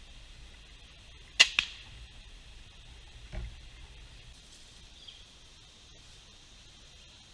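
A single quiet shot: a sharp crack with a second crack right behind it, then a dull thud about two seconds later.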